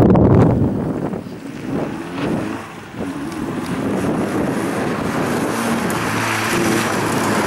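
Nissan Sunny's engine running hard, with wind buffeting the microphone in the first second. The engine builds from about three seconds in and settles into a steady engine note near the end.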